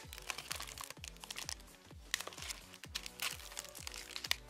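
Clear plastic parts bags crinkling as hands handle them and cut them open, over background music with a steady low beat.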